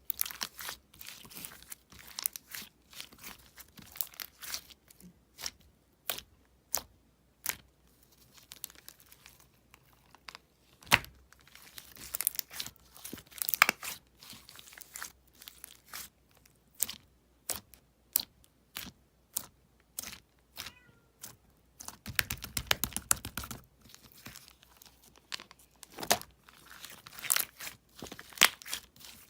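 Slime squished and stretched by hand, giving irregular sticky clicks and pops.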